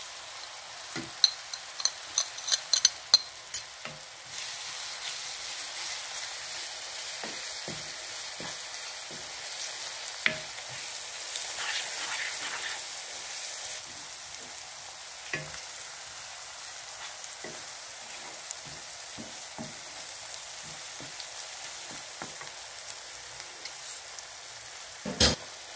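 Onions, green chillies and ground masala sizzling steadily in hot oil in a non-stick pan, stirred with a wooden spoon. A cluster of sharp clicks and spatters comes in the first few seconds, light taps follow, and there is one loud knock near the end.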